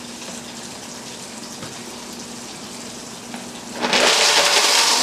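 Waring MX1200XTX blender running steadily at low speed with a steady hum, whipping egg whites. About four seconds in, a second blender starts at full power with a loud whir, grinding chocolate to a powder.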